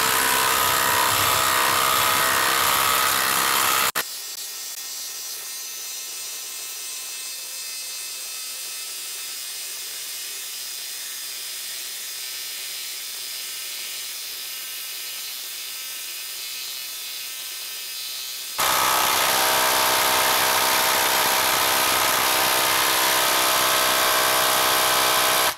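Ryobi HP brushless impact driver hammering steadily under heavy load as it drives a 5/8-inch by 8-inch lag screw into end-grain wood, until it can drive it no further. For a long stretch in the middle the sound is much quieter and thinner, played back sped up, and near the end it is loud again.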